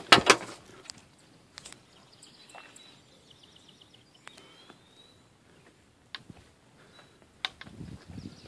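A sharp knock or handling thump right at the start, then quiet open air with faint bird chirps, a few small clicks, and a low rustle near the end.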